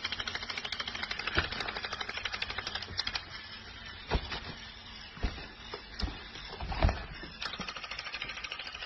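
Crawling toy soldier's motor and gears clicking rapidly, about ten ticks a second, as it crawls, with a few louder single knocks. The clicking fades in the middle and comes back near the end.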